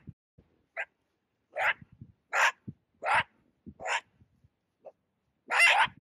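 An animal's short, harsh calls, repeated about every second, the last one longer and loudest.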